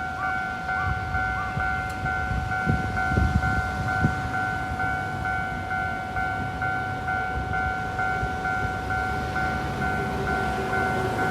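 Railway level crossing warning bell ringing steadily at about two strokes a second, signalling an approaching train; the rumble of the train starts to rise near the end.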